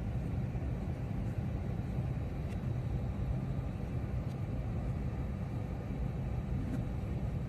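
Steady low rumble of outdoor ambience with a few faint clicks, cutting off suddenly at the end.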